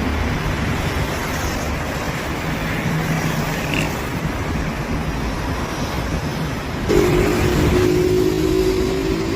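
Airbus A330 jet engines rumbling steadily. About seven seconds in, a louder steady drone with a fixed pitch joins in and holds.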